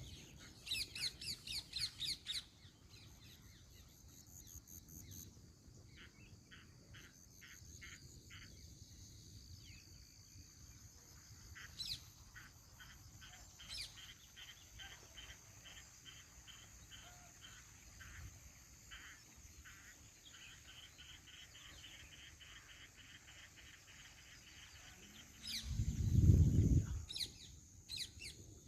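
Birds chirping and calling over open fields: a quick run of loud chirps at the start, then long series of short, evenly repeated chirps, over a steady high-pitched background drone. A loud low rumble breaks in near the end.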